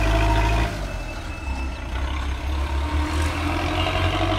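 Small flatbed truck's engine running loud and close as it pulls away, cut off sharply under a second in. Then steady street traffic, with a passing vehicle's engine rising in pitch near the end.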